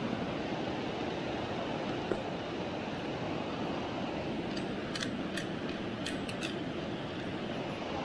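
Steady rushing of a river, with a handful of light, sharp clicks about five to six and a half seconds in.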